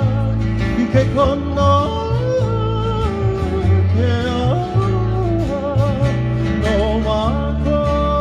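Live acoustic Hawaiian music: strummed and plucked acoustic guitars under a sung melody with vibrato, over a steady pulse of low bass notes.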